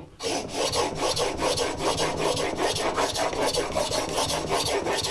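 Plane iron held in a Veritas Mk II honing guide being honed back and forth on a wet Japanese water stone: steel rasping over the wetted stone in a quick, even rhythm of strokes, with the guide's roller running along the stone.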